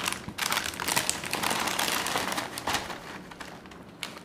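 Crinkling of a foil-lined plastic snack packet as it is tipped and shaken to pour puffed snack rings onto a paper plate. The crackle dies away near the end.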